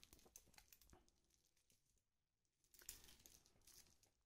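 Near silence, with faint crinkling of the protective plastic film and small clicks of the stainless steel watch bracelet and clasp being handled. This comes in two short spells: near the start and again about three seconds in.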